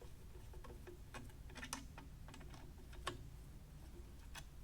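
Faint, irregular small clicks and ticks of a No. 2 Phillips screwdriver backing out the two screws that hold a drill press's power switch in place.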